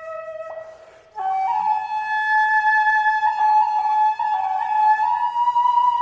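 Background music: a flute playing long, slow held notes, with a short break about a second in before the next phrase.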